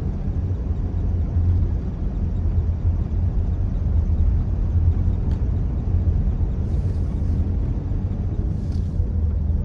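Steady low rumble of a car driving, engine and road noise, with two brief faint hisses about seven and nine seconds in.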